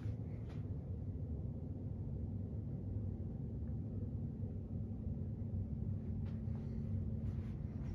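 Steady low room hum with a faint steady tone in it, and a few faint soft clicks about half a second in and again near the end.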